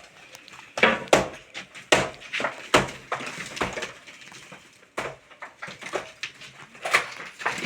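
Irregular series of sharp knocks and clatters, roughly one to two a second, with a quieter stretch a little past the middle.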